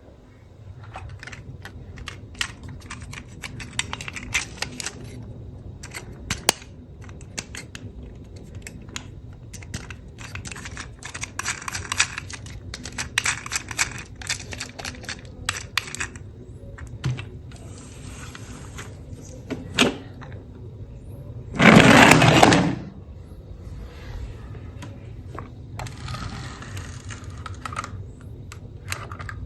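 Small hard plastic toys clicking and clattering in quick irregular runs, with one loud rasping burst of about a second roughly three-quarters of the way through.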